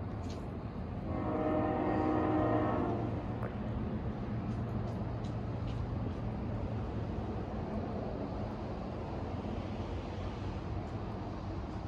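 A train horn sounds once for about two seconds, starting about a second in, over a steady low rumble from the approaching freight train.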